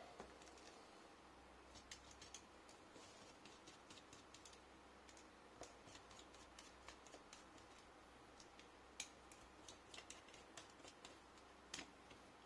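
Faint, irregular small clicks and light taps of hands and a small tool handling laptop internals, with a denser run of clicks near the end.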